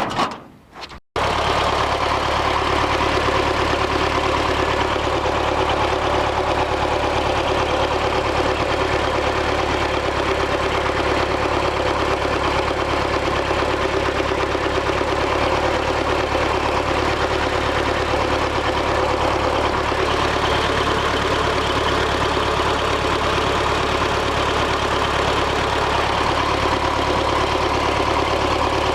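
ZIL-5301 Bychok's four-cylinder diesel engine idling steadily, starting about a second in. It is running on three cylinders: the owner finds the fourth cylinder not working, which makes the engine shake.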